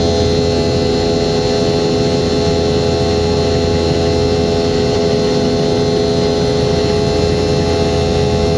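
A Boeing 717's turbofan engines running steadily at constant power: a loud, even drone with several steady whining tones over a low hum.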